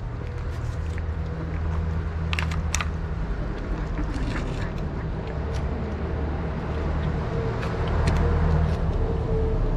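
A vehicle engine running with a steady low hum, its pitch wavering slightly, under a few sharp clicks as cats eat wet food from plates.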